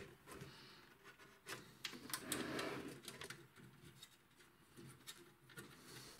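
Faint handling sounds of the Keysight E3632A power supply's metal cover being slid onto its chassis, with a few light clicks and scrapes.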